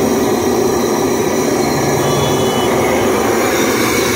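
Fish deep-frying in a large wok of bubbling oil: a loud, steady sizzle.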